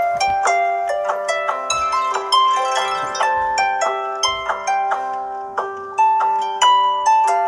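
Samsung Galaxy Grand Prime Plus ringtone playing: a quick melody of plucked, harp-like notes over a steady held tone.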